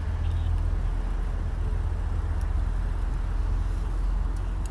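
A steady low rumble with no speech.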